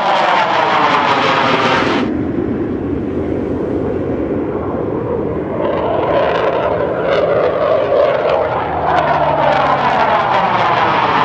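Military jet aircraft climbing out overhead after takeoff, their engines loud and continuous with a sweeping, phasing tone as they pass. The high hiss drops away about two seconds in, and a second wave of jet noise sweeps in from about nine seconds as another aircraft follows.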